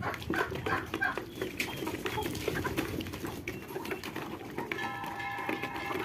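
Chickens and Muscovy ducks feeding together from a plastic bowl: many quick pecks at the grain, with soft clucks and low murmuring calls from the flock. A held tone of several pitches comes in near the end.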